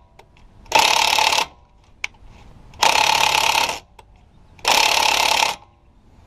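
Cordless impact wrench hammering in three bursts of about a second each, run back and forth on an outer tie rod end nut whose ball stud spins with it instead of breaking loose.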